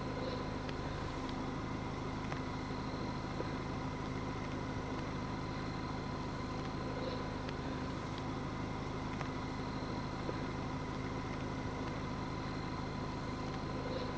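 Steady hum of a vehicle's engine idling, even in level, with a few constant tones in it and a faint short blip about every seven seconds.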